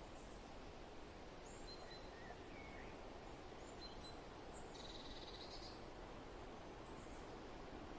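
Soft, steady wind blowing outdoors, with birds chirping now and then and a short rapid bird trill about five seconds in.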